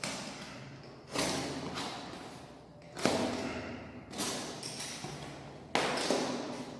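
Packaging of a fishing rod being opened and handled: a series of about five sudden noisy handling sounds, each starting sharply and fading over about a second.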